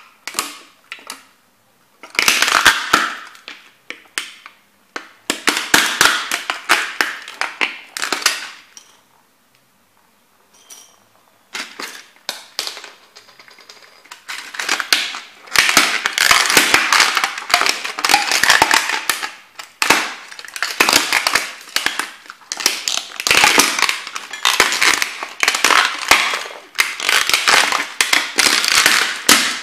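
Brittle plastic of a vintage kit model toy car cracking and crunching under Timberland boots, in runs of many sharp snaps as the boots grind and stomp on the pieces against a board, with a brief lull about a third of the way in.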